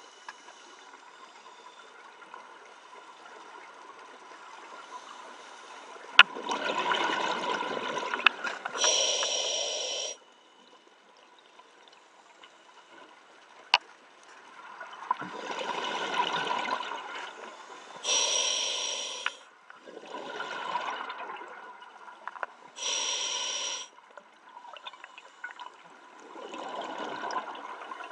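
Scuba diver breathing through a regulator underwater: a short bright hiss on each breath in and a longer, rougher bubbling gurgle on each breath out, repeating every few seconds, with two sharp clicks.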